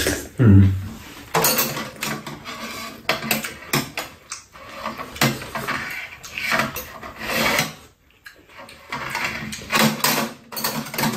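Two people eating chicken rice-cake soup: spoons and chopsticks tap and scrape against the bowls in many short clinks, with sips from a spoon.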